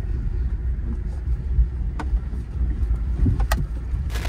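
Car driving slowly over a gravel and dirt track, heard inside the cabin: a steady low rumble of tyres and suspension, with a few short clicks about two seconds in and near the end.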